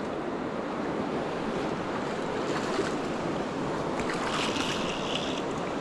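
A clear, stony river running steadily over rocks in the shallows. About four seconds in, a fly reel's click ratchet sounds for about a second.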